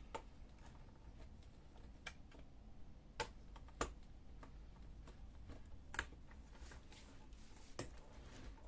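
Faint, scattered clicks and taps, about half a dozen over several seconds, from a small screwdriver turning laptop hinge screws and from handling the laptop's plastic and metal parts.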